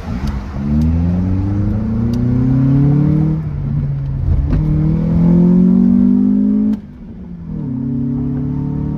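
Honda Accord's K24 2.4-litre four-cylinder heard from inside the cabin, accelerating hard through the gears with loud intake and exhaust noise through a short-ram intake and HKS muffler. The pitch climbs twice with a gear change between, drops off abruptly about seven seconds in, then settles to a steady drone.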